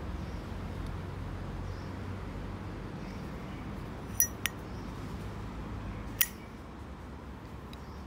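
Lid of a brass Armor Zippo lighter clicking open with a short metallic ring, two quick clicks a little after four seconds in, then snapping shut with a third ringing click about two seconds later, over a steady low rumble.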